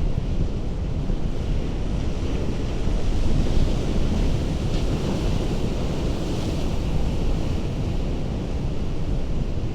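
Ocean surf washing against a rocky shore, with wind rumbling on the microphone. The hiss of the water swells up in the middle and eases off again.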